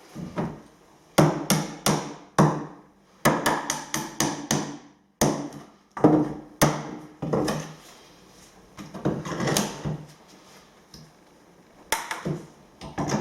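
Hammer knocking on timber floorboards: runs of sharp, irregular blows, several a second at first, then fewer and softer knocks near the end.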